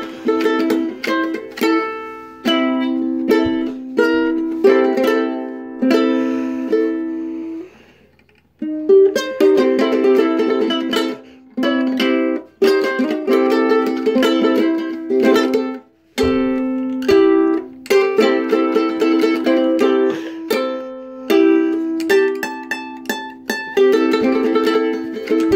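A ukulele being played: strummed and plucked chords ringing on, with quick repeated strums. The playing stops briefly twice, about eight and sixteen seconds in.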